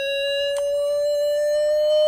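Emergency-vehicle siren sounding one long, nearly steady tone that creeps slowly upward in pitch, with a sharp click about half a second in.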